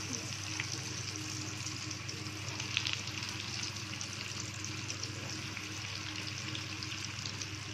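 Breadcrumbed potato-and-cheese balls shallow-frying in hot oil in a kadhai: a steady sizzling, crackling hiss with a few sharper pops, the loudest about three seconds in, over a low steady hum.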